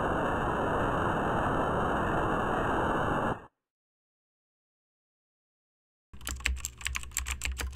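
Steady television-static hiss that cuts off abruptly about three and a half seconds in. After a couple of seconds of silence, rapid computer-keyboard typing starts near the end, over a low hum.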